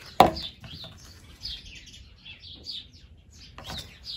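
Small birds chirping, many short high chirps in quick succession, with one sharp knock just after the start that is the loudest sound.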